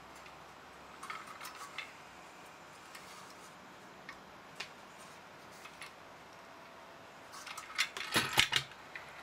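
Handling noise from a tower CPU cooler with a fan being turned over in the hands: scattered light clicks and taps, then a quick burst of louder clicking and clattering about a second before the end as it is moved.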